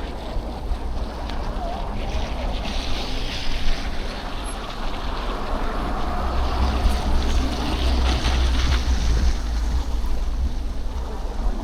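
Wind buffeting the microphone of a bike-mounted action camera while cycling, a steady low rumble with a hiss of moving air above it.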